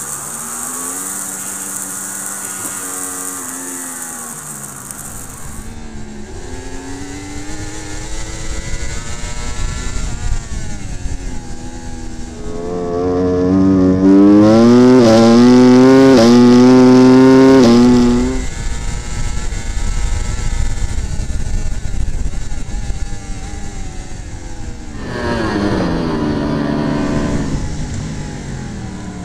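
Racing superbike engines heard from onboard cameras, cutting from one Yamaha or Ducati to the next: revs climb in steps through upshifts and fall away on the brakes into corners. The loudest stretch, in the middle, is a hard full-throttle run up through several gears.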